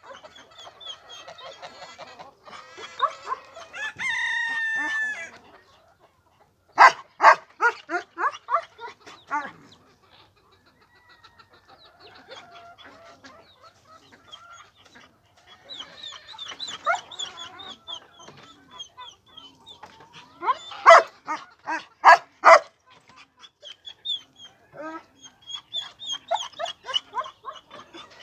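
Chickens clucking, with one held call about four seconds in, likely a rooster crowing. Twice, around seven seconds and twenty-one seconds in, come loud runs of quick sharp calls, the loudest sounds here.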